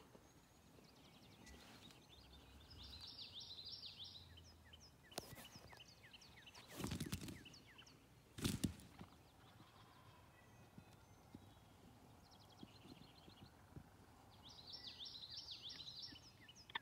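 Quiet field ambience in which a songbird sings a fast run of high, falling notes twice, about twelve seconds apart, with two soft thumps near the middle.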